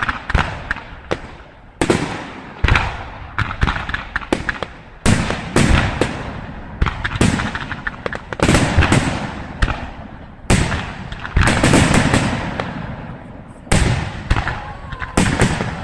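Fireworks display: aerial shells bursting in quick succession, sharp bangs every second or two, each followed by an echoing rumble and crackle.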